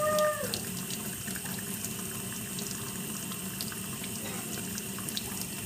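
Kitchen tap running in a thin stream into a stainless steel sink: a steady hiss of water with small splashes and ticks as a kitten paws at the stream. A short pitched note sounds briefly at the very start.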